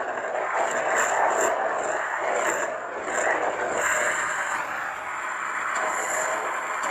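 Lightsaber sound font playing through a Proffie saber's speaker: a continuous rushing hum with a thin high whine on top, swelling and easing every second or so.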